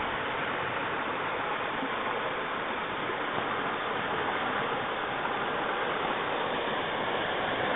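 Floodwater flowing steadily down a flooded road, an even rushing of water.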